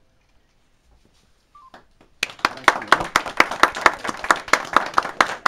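Hands clapping in an even rhythm, about four sharp claps a second, starting about two seconds in after a short near-silence.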